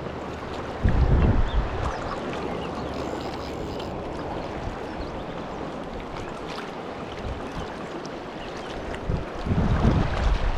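Steady rush of a high, fast river current, with two short bursts of low rumble on the microphone, about a second in and again near the end.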